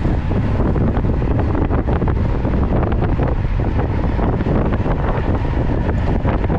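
Steady, loud wind rumble buffeting the microphone of a camera carried on a road bicycle riding at speed.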